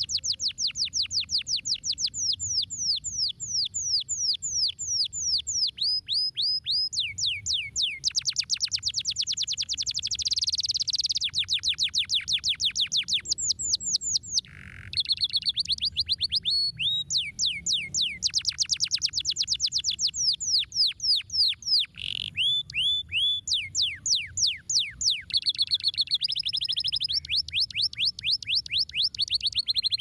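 Domestic canary singing a long, fast song of rapid trills, switching between runs of quick, repeated chirps every second or two, with one short break about halfway through.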